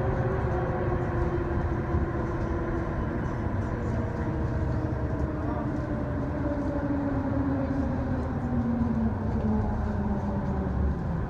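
Bus running on the road, heard from inside the passenger cabin: a steady low engine and road rumble, with a drivetrain tone that slowly falls in pitch as the revs drop.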